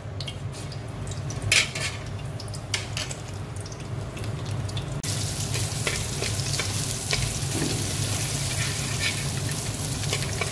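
Ground garlic sizzling in hot oil in an aluminium karahi, stirred with a perforated metal skimmer spoon that taps and scrapes on the pan. The first half is mostly scattered scrapes and taps; about halfway the sizzle rises suddenly and stays steady, over a low steady hum.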